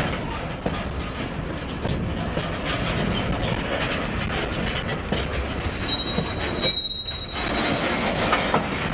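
Freight cars rolling past close by, their wheels clattering and knocking on the rails. A thin, high, steady squeal from the wheels comes in about six seconds in.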